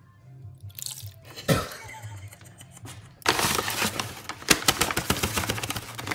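Paper flour bag crinkling and rustling as a metal measuring cup scoops flour from it, starting about three seconds in, over background music. A single knock about a second and a half in.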